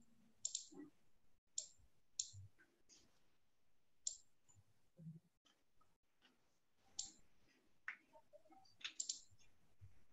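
Near silence broken by a handful of faint, short clicks at irregular intervals, roughly one every second or so.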